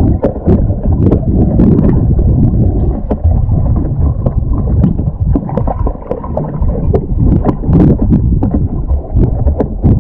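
Muffled underwater water noise heard through a waterproof camera housing as the spearfisher swims, dull and rushing, with frequent small clicks and knocks throughout.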